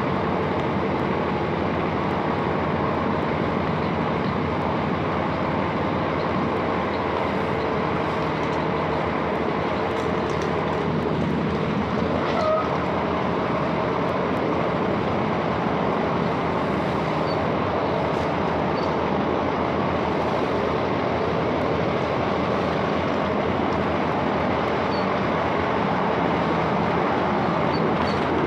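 Class 165 diesel multiple unit running along the line, heard from inside the carriage: a steady rumble of the diesel engine and the wheels on the rails, with faint steady engine tones under it.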